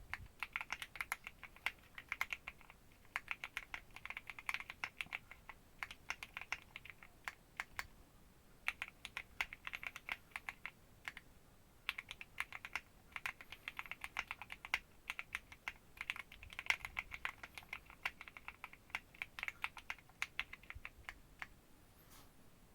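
Typing on a Keychron Q1 aluminium-case custom mechanical keyboard: quick runs of key clacks in bursts of a few seconds with short pauses between, stopping near the end.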